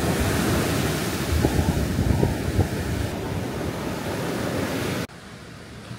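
Sea surf washing on the beach with wind buffeting the microphone, a dense gusty rush heaviest in the low end. About five seconds in it cuts off abruptly to a much quieter background.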